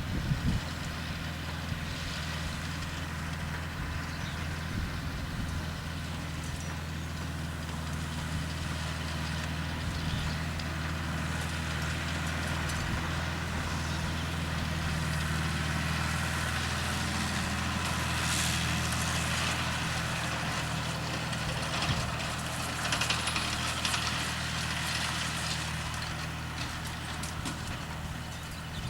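A farm machine's engine running steadily at a constant speed, with a rustling, clattering noise above it that grows a little past the middle.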